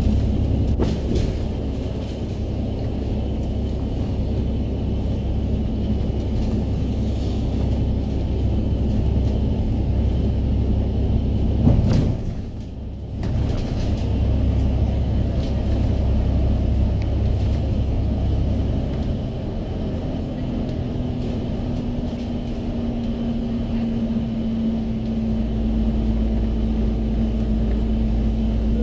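Bus engine and tyre rumble heard from inside the cabin while cruising on a highway. The rumble dips briefly about twelve seconds in, and a steady hum joins it after about twenty seconds.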